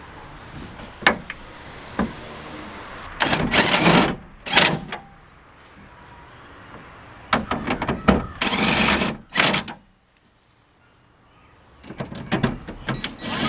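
Cordless drill/driver driving fasteners into a pickup's bed rail trim in short bursts: two short runs a few seconds in, a longer run about halfway through, and another starting near the end, with a couple of light knocks before the first.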